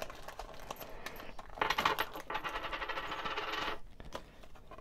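Gold-coloured medallion coins dropping out of a foil booster pack onto a table. One rings and rattles for about two seconds before it settles, with light clicks of the handled pack around it.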